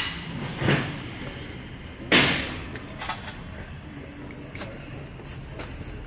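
Metal clanks and clicks from ratchet-strap buckles, hooks and a truck differential on a wooden pallet: two sharp clanks about a second and two seconds in, then lighter clicks, over a steady low hum.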